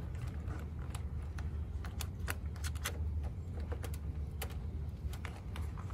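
Irregular small clicks and taps of plastic trim and wiring as loose door sill wires are tucked by hand into the truck's door sill trim, over a steady low hum.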